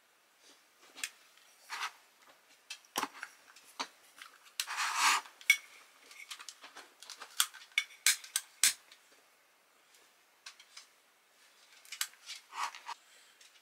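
A long-reach candle lighter clicking as it is triggered and a frosted glass candle jar clinking as it is handled, in scattered sharp clicks and taps, with a brief scraping rustle about five seconds in.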